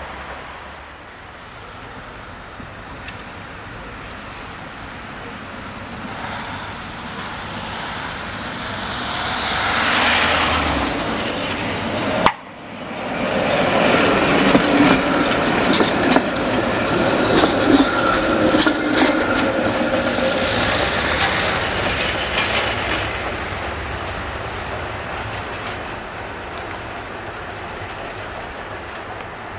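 Tatra trams running on street track: a tram's rumble swells and breaks off abruptly about twelve seconds in, then another passes close by, louder, its wheels clattering over the rail joints with a faint whine, and fades away near the end.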